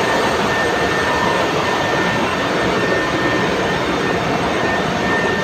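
Ship's engine-room machinery running: a loud, steady mechanical din with a thin steady whine on top.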